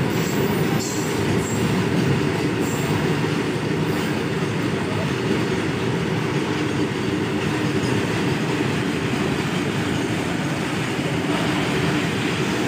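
Freight train of open-top wagons rolling steadily past: a continuous rumble of steel wheels on rail, with a few brief high wheel squeals in the first few seconds.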